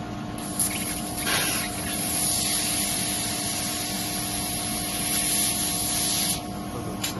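Hiss of a 1500 W handheld laser welding machine's cutting head as it cuts metal, its assist gas blowing through the nozzle. The hiss starts about half a second in and cuts off suddenly about six seconds in, over a steady hum.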